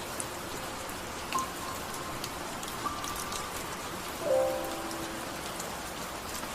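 Steady rain falling on a car's roof, with scattered individual drops ticking. A few soft musical notes sound now and then, the loudest a chord about four seconds in.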